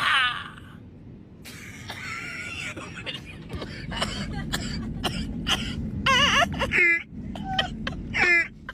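A person's voice making short, high-pitched, wavering cries without clear words, louder near the end, with brief clicks in between.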